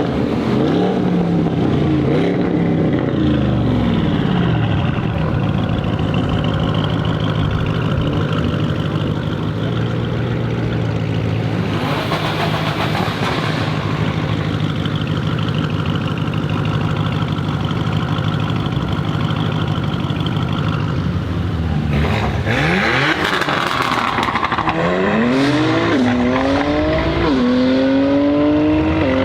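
Audi RS6 C8's twin-turbo V8, with its particulate filter deleted, revving up and down, then running steadily. Near the end it accelerates hard, the pitch climbing and dropping with each of several quick upshifts.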